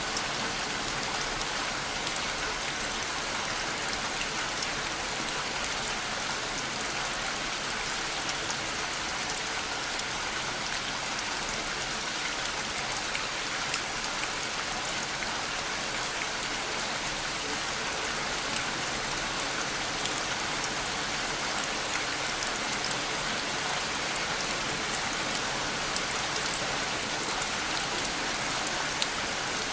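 Steady rain falling, an even hiss with many small drop ticks on a surface, kept level with little rise or fall.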